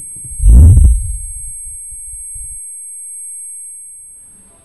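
Film sound-design effect: a steady high-pitched ringing tone with a loud, deep boom about half a second in, whose rumble cuts off after about two and a half seconds; the ringing fades away near the end.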